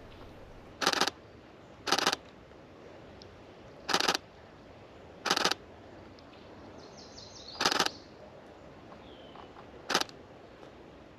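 Camera shutter firing in six short bursts of rapid frames, one every one to two seconds, over a faint outdoor background with a few soft bird chirps.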